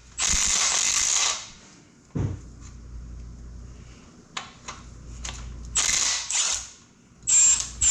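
Ratchet wrench working fasteners loose during an engine teardown, in bursts of about a second with a few short clicks between them.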